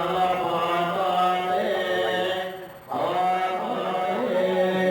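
Buddhist chanting by several men's voices in unison, long drawn-out notes on a steady pitch, breaking off briefly about three seconds in and resuming.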